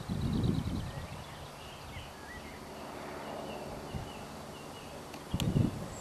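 A European robin singing faintly from the trees in short, high phrases. Two loud low bursts of wind buffeting the microphone, one at the start and one near the end, with a sharp click just before the second.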